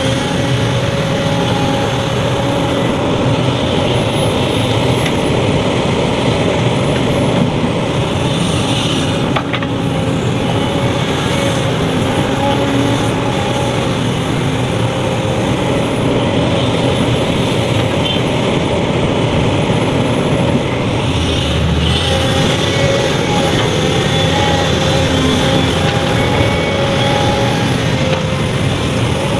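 Heavy diesel earthmoving machinery running steadily and loudly, a constant engine drone with steady whining tones over it.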